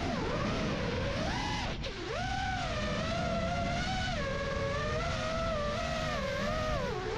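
Electric motors and propellers of a small RC aircraft whining, several close tones rising and falling together with the throttle, with a sharp dip in pitch about two seconds in and another near the end. A steady low rumble sits underneath.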